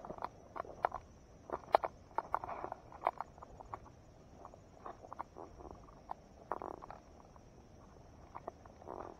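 Walking through tall grass and brush: irregular footsteps, rustling of stems and leaves, and scattered sharp clicks, busiest in the first few seconds and lighter near the end.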